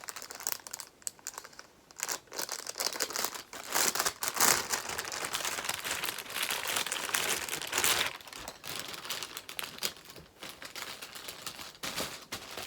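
Packaging crinkling and rustling in the hands, with a few tearing sounds, as a fabric zip pouch is unwrapped. The crinkling comes in irregular spells, loudest a few seconds in and again later on.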